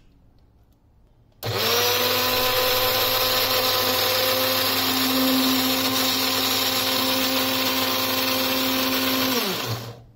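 Electric blender switched on about a second and a half in, running steadily for about eight seconds as it purées banana pieces with a little milk and sugar. It is then switched off, its pitch falling as the motor spins down near the end.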